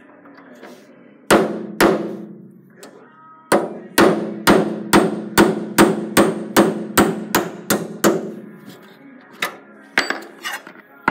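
Hammer striking a small pin punch to drive the shank of a drilled-off plain aluminum rivet out of a Cessna 210B aileron balance weight. Two blows, then a quick run of about a dozen blows at roughly three a second, each with a short metallic ring, and a few lighter taps near the end.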